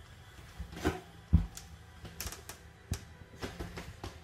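Footsteps on a diamond-plate metal walkway floor: a string of uneven dull thuds and clicks about every half second, over a faint low hum.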